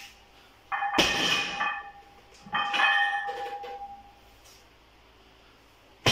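A heavily loaded deadlift barbell clanks three times, once near the start, again a second and a half later, and last at the very end. Each clank leaves the weight plates ringing as it fades over about a second.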